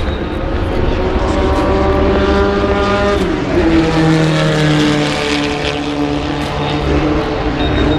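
Racing car engine running on the circuit, its pitch climbing for a few seconds, dropping about three seconds in, then holding fairly steady.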